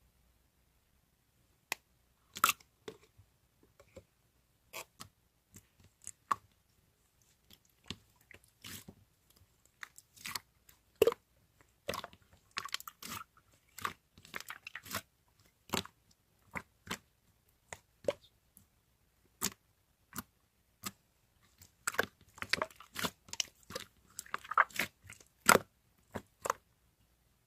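Irregular sharp clicks and short crunchy crackles, close to the microphone, with no voice.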